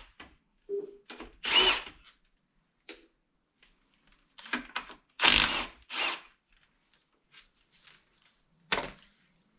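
A power tool backing ring gear bolts out of a differential carrier, run in several short bursts about half a second long with pauses between them.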